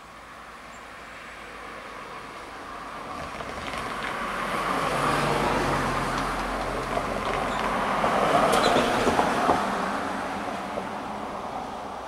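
Two cars driving over the level crossing one after another. Their tyre and engine noise swells up, peaks twice and fades away, with a few sharp clicks as the second car passes.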